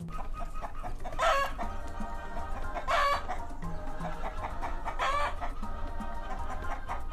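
Chicken calling: three loud, short squawking calls about two seconds apart, with softer clucking between them.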